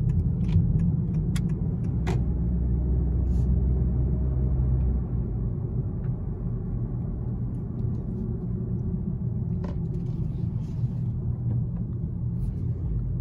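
Low, steady road and engine rumble inside the cabin of a moving 2020 Honda Accord, easing a little about five seconds in.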